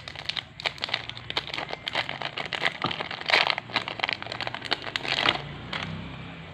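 Foil booster pack wrapper crinkling and crackling as it is handled and opened, dying down about five seconds in.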